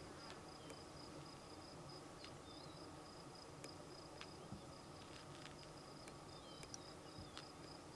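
Faint insect trilling: a steady, high-pitched pulsing trill, with a few short faint chirps over it.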